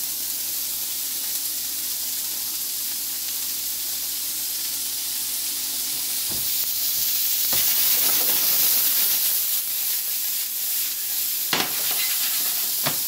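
Broccoli and carrots sautéing in a hot skillet, a steady frying sizzle. A few short knocks come as the pan is moved and shaken, two of them near the end.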